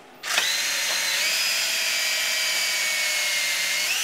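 DeWalt cordless drill drilling a pilot hole into a glued-up wooden breadboard. The motor whines at a steady pitch that dips slightly about a second in, then rises briefly just before it stops.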